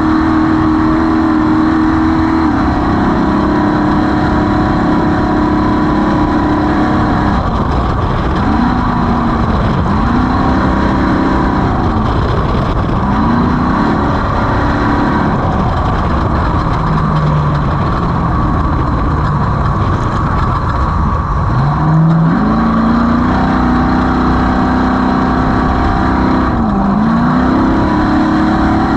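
Off-road race vehicle's engine running hard under heavy rattle and driving noise. It holds steady revs, then drops and climbs again several times as the throttle comes off and back on, settles lower for a few seconds, then climbs sharply and holds high, with one brief dip near the end.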